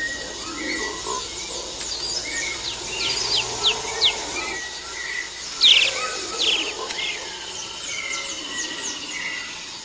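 Tropical rainforest birds calling: a busy mix of short chirps, quick falling whistles and trills, the loudest a burst of chirps a little past the middle.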